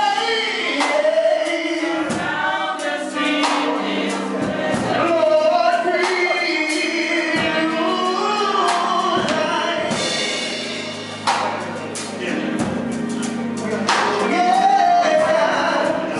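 A man singing a gospel song through a microphone and PA, his voice bending and holding long notes, backed by a live band with sustained keyboard notes and drums.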